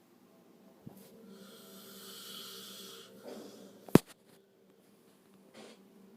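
A sleeping man snoring: one long, rasping breath, followed about four seconds in by a sharp click, then a short pause before the next breath begins.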